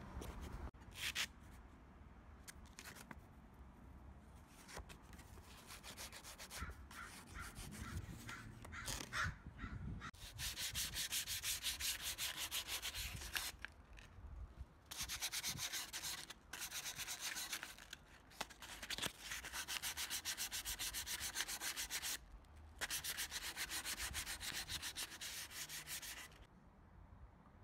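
Hand sanding a pine paddle strop with a folded sheet of sandpaper: fast back-and-forth rubbing strokes in runs of a few seconds with short breaks between them. The first third holds only scattered, lighter rubs and scrapes.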